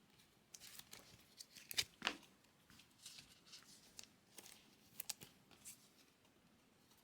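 Trading cards being slid into soft plastic sleeves: faint, scattered rustles and light clicks, the loudest pair about two seconds in.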